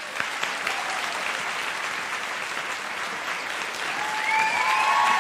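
Audience applauding steadily, growing a little louder near the end, when a few drawn-out high whoops from the crowd rise over the clapping.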